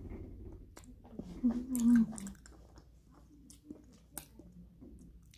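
Close-up chewing of a meat stick: wet mouth noises and small clicks, with a short hummed voice sound about one and a half seconds in.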